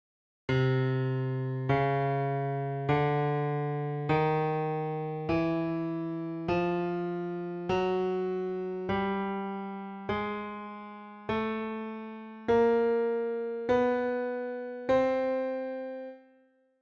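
Piano-like keyboard tone playing an ascending chromatic scale over one octave: thirteen single notes struck at an even pace about a second apart, each dying away before the next. It is a scale example for comparing tuning systems.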